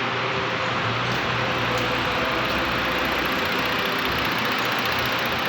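2014 Ford Taurus V6 engine idling steadily.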